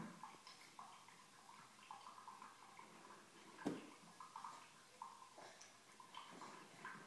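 Near silence: faint room sounds, with one sharp knock a little past the middle.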